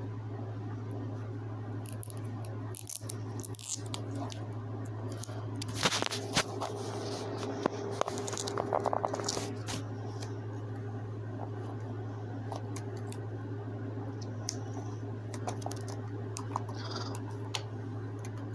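Packaging of a pair of wireless earbuds being handled and opened: crinkling plastic with small clicks and scrapes, busiest in the middle, over a steady low hum.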